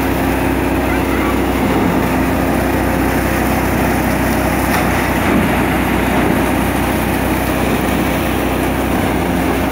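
Tractor-powered Dashmesh paddy thresher running steadily at full work, its threshing drum and blower whirring with the tractor engine, as rice straw and grain rush through the machine.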